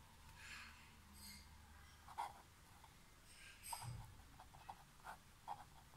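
Faint scratching of a pen writing on paper, in short separate strokes, with a soft low thump about four seconds in.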